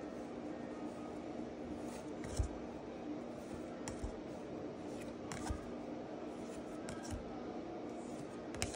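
Pokémon trading cards being flipped through by hand, one card at a time, giving a short light click of card stock about every second and a half over a steady low room hum.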